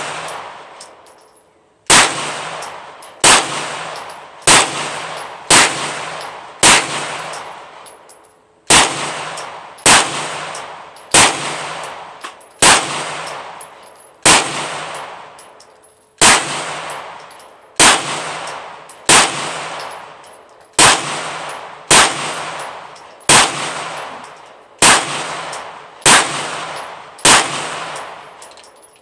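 Canik TP9SFX 9mm pistol firing a string of about nineteen single shots at a slow, steady pace, roughly one every one to one and a half seconds, with a slightly longer pause after the fifth. The magazine is being emptied, and each shot echoes off the wooden roof of the covered firing line.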